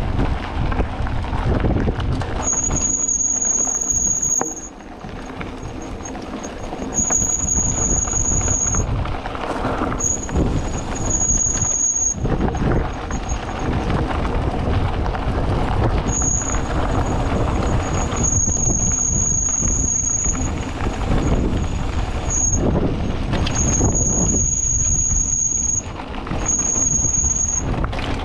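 Mountain bike ridden fast downhill on a gravel dirt road: a steady rumble of wind on the microphone and tyres over loose dirt, with a high-pitched brake squeal that comes and goes about seven times as the brakes are dragged.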